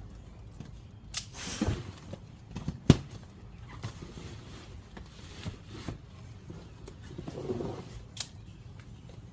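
Packaging and plastic fender flare parts being handled during unboxing: scattered rustles, scrapes and knocks, the sharpest knock about three seconds in.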